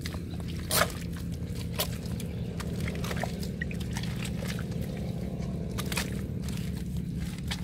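Hoe blade digging into and scraping wet mud: a few squelching strikes and scrapes, the loudest about a second in, over a steady low hum.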